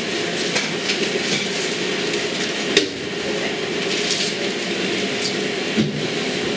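A steady mechanical hum with a rush of air, like a fan or extractor running, with a couple of light knocks.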